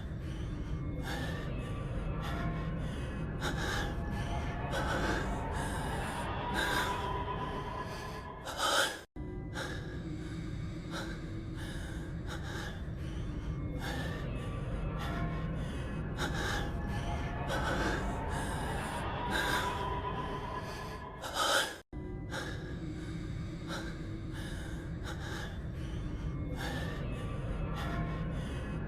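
A man's heavy breathing and gasps over background music, repeating as a loop about every 13 seconds, with a brief dropout where the loop restarts, twice.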